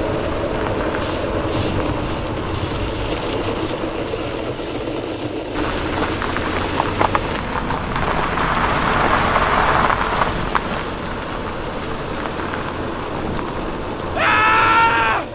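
Car-wash sound effect: a steady hiss of spraying water, its sound changing about five and a half seconds in. Near the end comes a short pitched sound with several tones, about a second long.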